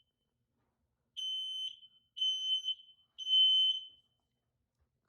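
Smoke alarm sounding on its test button: three long, high-pitched beeps about a second apart, starting about a second in.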